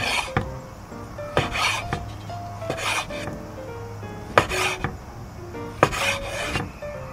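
Chef's knife cutting horse mackerel flesh into small pieces on a bamboo cutting board: five short scraping cuts about one and a half seconds apart, over background music.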